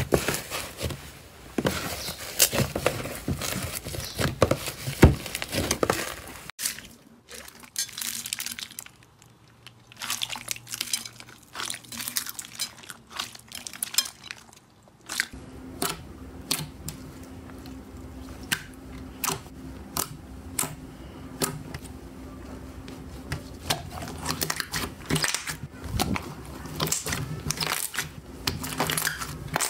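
Hands squishing, pressing and stretching slime, including clear slime mixed with foam beads: a run of wet, sticky crackles, pops and clicks. The sound drops off sharply about six and a half seconds in, then the crackling picks up again.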